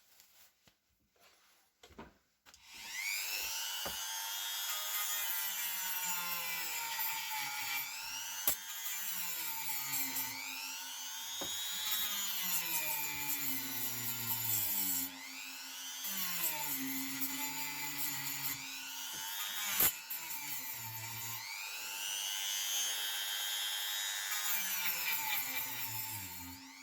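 A small electric power tool runs continuously after a few clicks, its pitch rising and falling every few seconds as its speed changes under load. A few sharp clicks stand out during the run.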